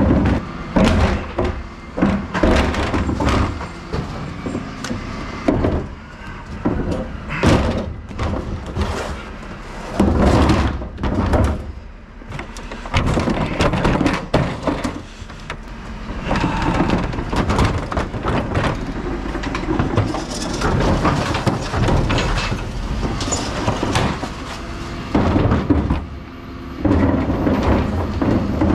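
Plastic wheelie bins being grabbed and wheeled over block paving and tarmac: rattling wheels and repeated knocks and clatters of the bin bodies and lids, over the low running of the refuse truck.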